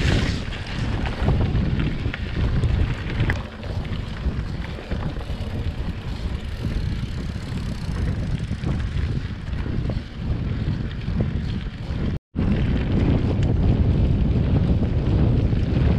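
Wind buffeting the microphone: a loud, unpitched rumble that swells and eases unevenly. The sound cuts out completely for a moment about twelve seconds in.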